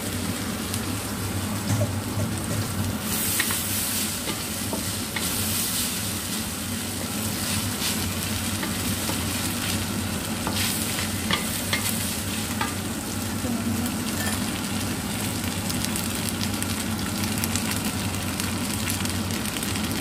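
Noodles, sausage and onion stir-frying in a stainless steel wok: a steady sizzle, with a wooden spatula scraping and clicking against the pan as the noodles are tossed.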